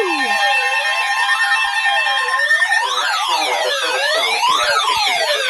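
Emergency alert tones: a steady two-tone attention signal that stops about two and a half seconds in, overlaid by several electronic siren-like tones sweeping up and down in pitch, which carry on alone to the end.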